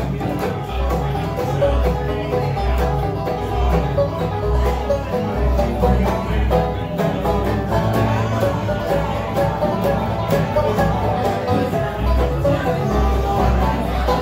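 Live acoustic bluegrass band playing an instrumental passage: banjo picking to the fore over fiddle, mandolin and acoustic guitars, with a steady beat.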